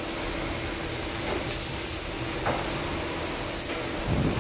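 Steady din of a metal-spinning production workshop with CNC spinning machines running: an even rushing noise over a constant low hum, with a few faint ticks.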